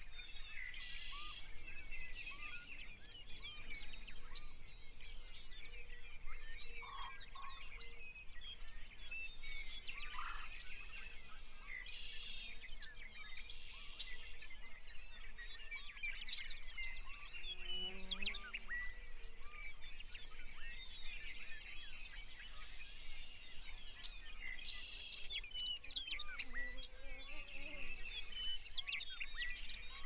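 A chorus of wild songbirds chirping and trilling, many calls overlapping, with a high insect-like buzz repeating in the background. A few lower calls come about eighteen seconds in.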